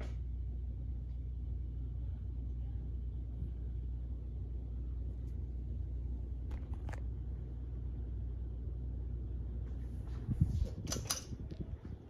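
Hunter Granville 52-inch ceiling fan running on medium speed, a steady low hum. Near the end come a few sharp clicks and a rattle as the pull chain is worked and the fan's light switches on.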